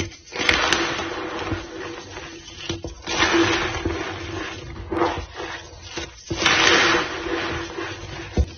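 White gym chalk powder being squeezed and packed into a block, giving squeaky, crunching presses about every three seconds, with a few small clicks between them. A faint steady low tone runs underneath.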